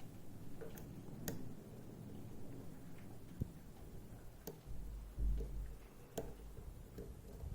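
Faint, irregular clicks and ticks of a lock pick working the pin stack of an EVVA ICS dimple cylinder, about seven sharp clicks in all, over low handling bumps and rumble.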